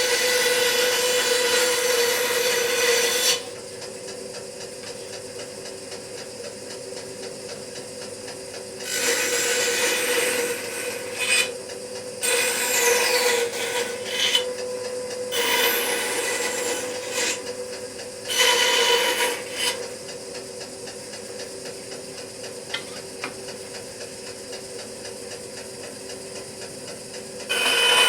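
A 14-inch bandsaw running with a steady hum while its blade cuts through wood. The cutting comes in several passes: one at the start lasting about three seconds, a run of short cuts from about nine to twenty seconds in, and another near the end. Each cut rises loudly over the hum.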